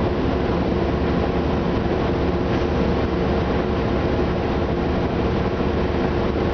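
Inside an Orion VII city bus under way: its Detroit Diesel Series 50 four-cylinder diesel and Allison B400R automatic transmission running with a steady drone, over an even road and body noise.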